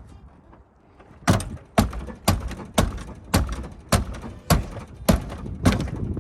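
Nine sharp, evenly spaced strikes, about two a second, on a 2000 Honda Civic's door, as it is being forced off the car.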